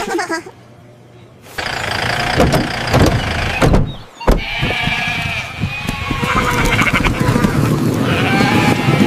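Sheep bleating, starting about a second and a half in, over a busy clattering background.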